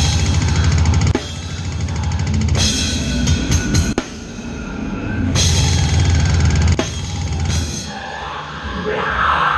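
Tama drum kit with Meinl cymbals played live in heavy metal, in stop-start bursts of very fast double bass drum and crashing cymbals over the band, with short breaks between them. Near the end a crowd starts yelling and cheering.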